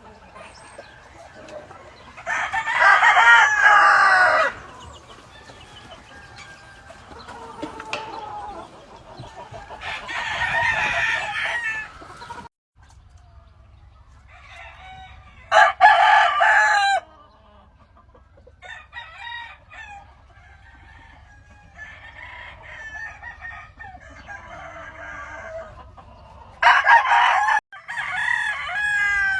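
Gamefowl roosters crowing again and again, several long crows from different birds with fainter calls and clucking between them; the loudest crows come a few seconds in and about halfway through.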